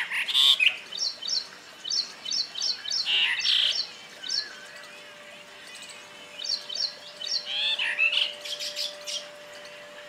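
Brahminy myna (Brahminy starling) calling: quick runs of short, high chirps mixed with louder warbling phrases, with a pause of about two seconds in the middle.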